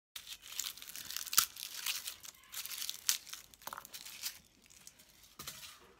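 Dry garlic skins crinkling and crackling as cloves are peeled by hand, with a few sharp clicks. It starts suddenly and dies down about four and a half seconds in.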